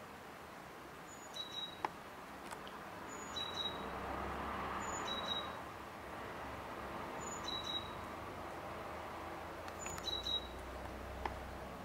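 A small bird calling faintly, a short two-note chirp, high then lower, repeated about every two seconds, over a faint background rumble that swells and fades about four to five seconds in.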